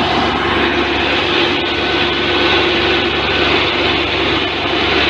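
Belarus 510 tractor's diesel engine running steadily under load as it pulls a double disc harrow through the soil.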